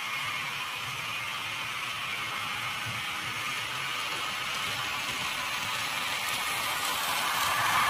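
HO scale model train running on the layout's track, a steady motor whir with wheel and rail noise that grows gradually louder as it nears, loudest near the end.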